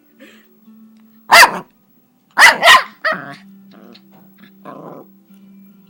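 Dog barking: three loud, sharp barks, the last two in quick succession, over a steady low background tone.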